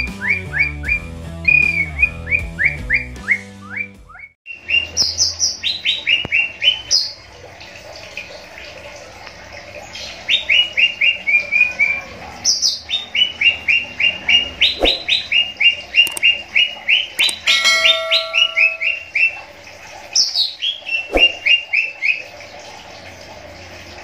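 Caged cucak ijo (greater green leafbirds) singing: repeated bouts of quick, falling chirped notes, each phrase a rapid run of notes. The first few seconds are music.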